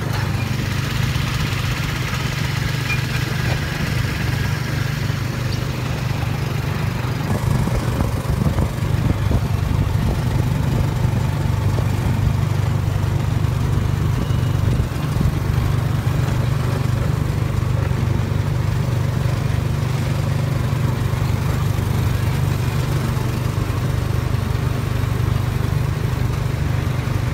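Steady low drone of an engine or motor running without change, with a noisy hiss above it.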